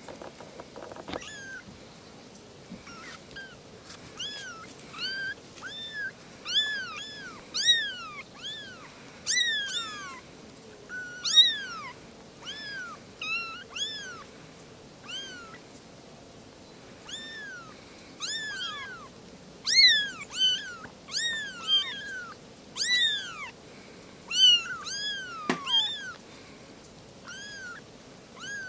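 Very young kittens mewing over and over, thin high-pitched mews that each rise and fall in pitch, several a second at times and sometimes overlapping as more than one kitten calls at once.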